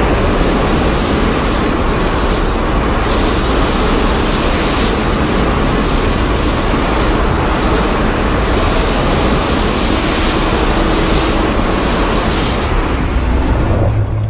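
Steady, dense rushing noise, a made-up sound effect for a dragon kaiju's power-up, that starts to fade near the end.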